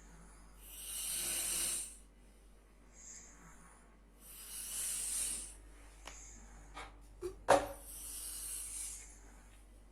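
A sleeping person snoring: a rasping, hissy breath about every three and a half seconds, three in all. A few sharp clicks fall between the breaths, the loudest about three-quarters of the way in.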